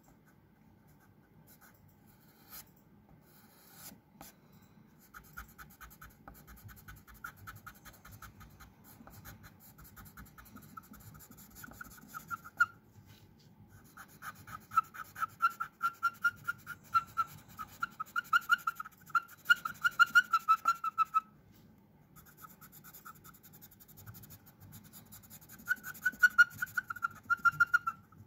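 A black drawing pencil scratching across textured paper in quick, short strokes. It starts about five seconds in and comes in three runs, with brief pauses between them.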